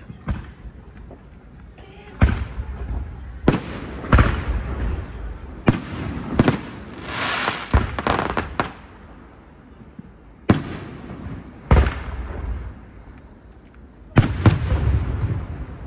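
Aerial firework shells bursting in a display: a string of sharp booms every second or two, with a stretch of dense crackling about halfway through and again near the end.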